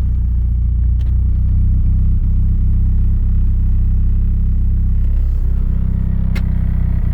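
The turbocharged 4G63 four-cylinder of an AWD Talon TSi running at a steady low drone, sagging briefly about five seconds in. It runs roughly from a misfire and had nearly stalled a moment earlier.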